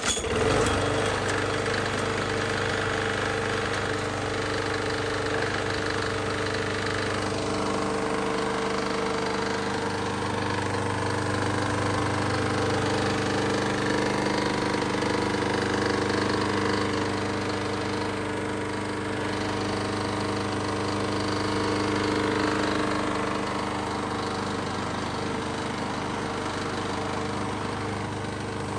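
Craftsman walk-behind lawn mower's small single-cylinder engine catching right at the start, then running steadily at a constant speed.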